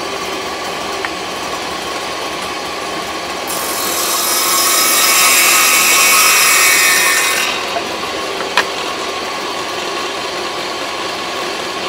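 Table saw running steadily, its blade taking a shallow cove-cutting pass, raised about another 1/16 inch, as a wooden block is pushed across it at an angle. The cut starts about three and a half seconds in, swells and fades out about four seconds later, and is followed by a single sharp tap.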